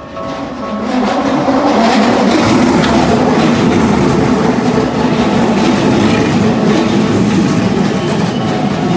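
Keikyu Line electric train passing close over a level crossing, the loud steady rumble and rattle of its wheels on the rails building up about a second in. At the start the crossing's warning bell is still ringing, then it is drowned out by the train.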